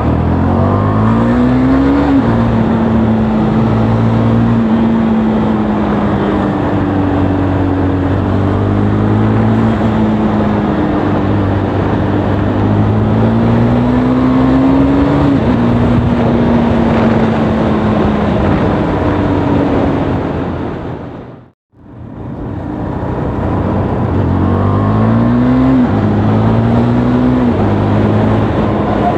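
KTM RC 390's single-cylinder engine and exhaust on the move, revving up and shifting gear a few times: the pitch climbs and drops back sharply at each shift, with steady running in between. About two-thirds through the sound dips briefly to silence and fades back in.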